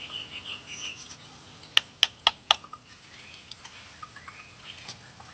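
Small birds chirping, then four sharp taps in quick succession about two seconds in, with a few fainter ticks afterwards.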